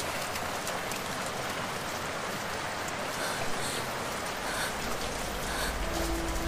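Steady rain falling. Near the end, low held music notes come in under it.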